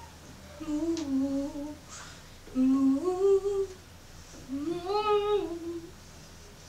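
A woman humming a short tune with closed lips, in three brief phrases of held notes that step up and down.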